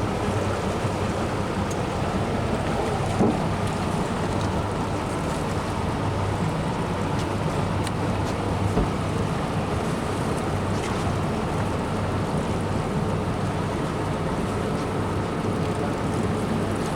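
Steady rush of river water and wind with a low, steady motor hum underneath, and a brief knock about three seconds in.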